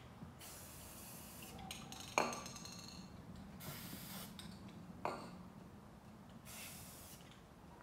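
Aerosol can of rust spray paint hissing in about four short bursts as paint is sprayed onto the water surface, with a couple of sharp clicks in between.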